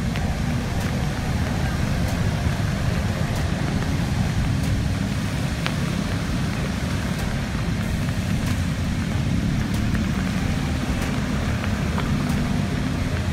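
Steady rumble of road traffic mixed with the hiss of rain, with faint ticks at a regular pace of a little over one a second.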